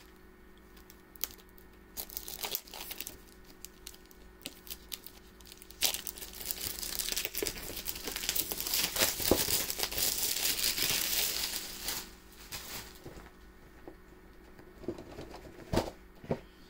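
Wrapping on a board game box being torn open and crumpled by hand. Scattered crinkles and taps at first, then about six seconds of continuous crinkling and tearing in the middle, then a few sharp knocks of handling near the end.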